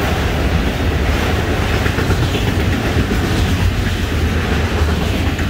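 Enclosed autorack freight cars of a Florida East Coast Railway train rolling past: a steady rumble of steel wheels on rail with clickety-clack over the rail joints.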